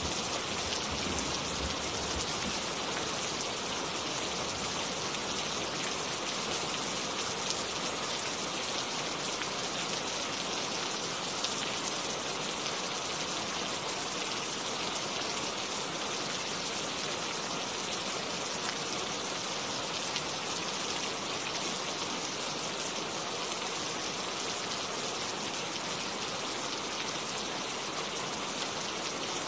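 Steady rain falling, an even hiss of countless drops that holds at one level without letting up.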